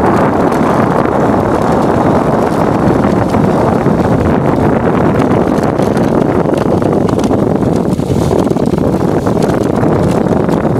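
A steering sled's runners sliding fast over packed snow down a hill, a steady scraping rush mixed with wind buffeting the microphone.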